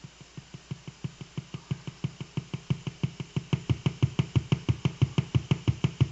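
Regular short buzzing pulses, about six a second, growing louder, from a colour-changing LED wired into a Realistic Concertmate-370 keyboard. They are interference from the LED's colour-cycling circuit, heard through the keyboard's amplifier.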